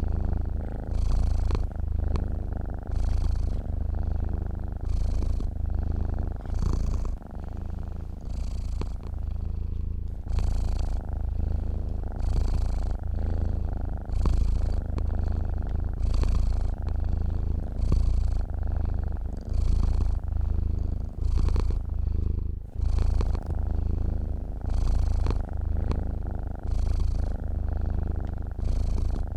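Domestic cat purring steadily close to the microphone: a deep, continuous rumble that pulses about once a second with the cat's breathing.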